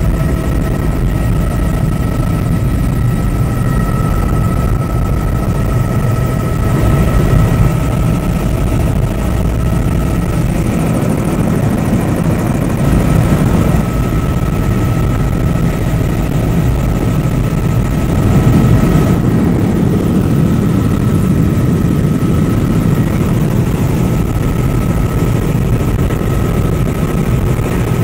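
Helicopter in cruise flight heard from inside the cabin: loud, steady rotor and engine noise, with a constant high whine over it.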